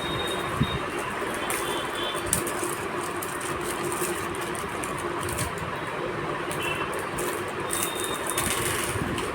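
Steady background hum with two sharp knocks, about half a second and about two seconds in, and scattered small clicks and rattles from handling a metal PC cabinet.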